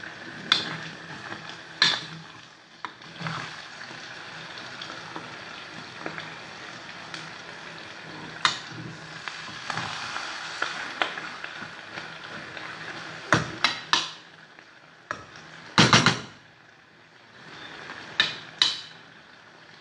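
Sausage and peppers sizzling as they fry in an enamel pot on a gas burner, with a spoon stirring and knocking sharply against the pot about nine times. Three knocks come close together about 13 seconds in, and the loudest comes about 16 seconds in.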